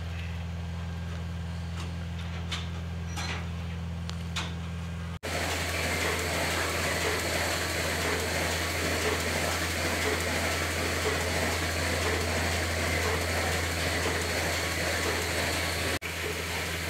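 Steady mechanical hum of dairy barn machinery, with a few light knocks in the first five seconds. After about five seconds a louder, even hiss joins the low hum.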